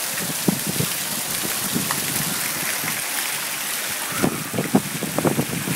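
Stone fountain's water jet splashing steadily into its basin, a constant hiss, with a few short, louder sounds in the second half.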